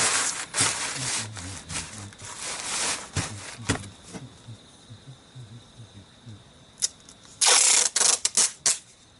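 Hand work with tools or materials: scattered mechanical clicks and rasps, then a loud rasping burst with several sharp clicks about seven and a half seconds in.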